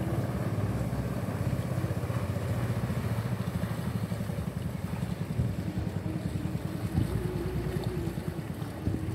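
Ketinting longtail outboard engine on a small wooden boat running steadily at speed across the river, growing slightly weaker and more uneven in the second half.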